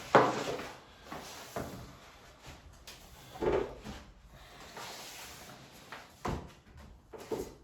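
Handling noise of wallpaper lengths being worked with: a few separate knocks and rustles, the loudest right at the start, with others about three and a half and six seconds in.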